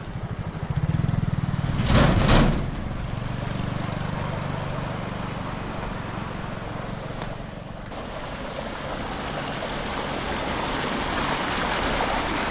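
Motor vehicle engine running with a steady pulsed low rumble and rushing noise over it, with a louder short burst about two seconds in.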